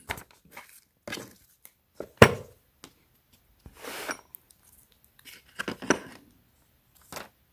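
Handling of a brake caliper piston wind-back tool kit: a sheet of paper rustling and steel adapters clicking and knocking against the plastic case in scattered, irregular sounds. The loudest is a sharp knock about two seconds in.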